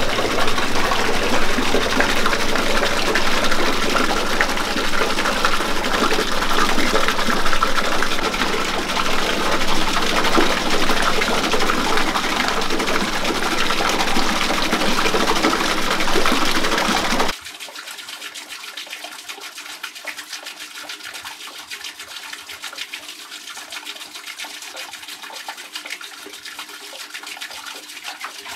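Water pouring from bamboo spouts and splashing over a small bamboo water wheel into the pool, a steady rush of falling water. About seventeen seconds in it drops abruptly to a much fainter, steady trickle.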